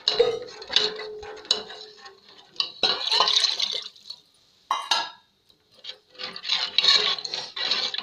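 Steel ladle stirring thin buttermilk-and-gram-flour kadhi mixture in a metal pot: liquid sloshing and the ladle scraping against the pot, in irregular bursts with a short pause about halfway through.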